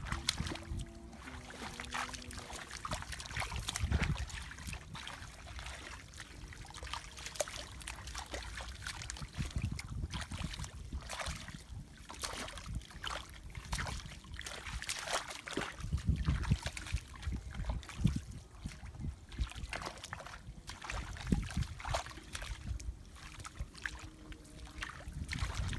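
Shallow muddy water splashing and sloshing in irregular bursts as a person wades barefoot and gropes through it by hand for fish, with a few dull low thumps.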